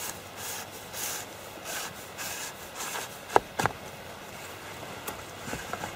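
Handling noise as the fishing rod is lifted: irregular rustling and rubbing, with two sharp clicks a little over three seconds in that are the loudest sounds.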